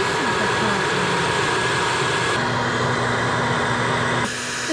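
Hair dryer running steadily with a whine, blowing hot air onto a frozen water pipe to thaw it. Its sound shifts about halfway through and again near the end.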